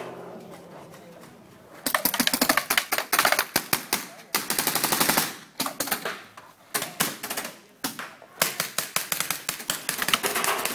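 Paintball markers firing rapid strings of pops, several guns at once. The firing starts about two seconds in and comes in bursts with short pauses.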